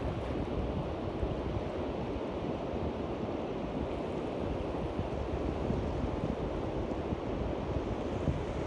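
Small sea waves washing on the shore, with wind rumbling on the microphone; a steady wash with no distinct strikes.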